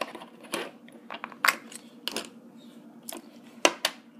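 Hard plastic clicks and knocks from a small fruit-slice slime tub being opened and handled: about eight sharp, irregular taps as the lid and tub are worked and the slime is lifted out.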